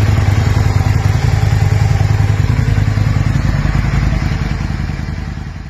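2005 Aprilia RSV 1000 Mille's 60-degree V-twin idling steadily through an Akrapovič SP exhaust, fading out near the end.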